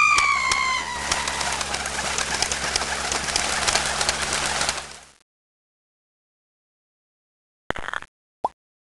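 Cartoon bird sound effects: a drawn-out cry sliding down in pitch fades out over the first second or so, under several seconds of dense crackling rustle that cuts off suddenly about five seconds in. Near the end come two short blips, the second a quick rising chirp.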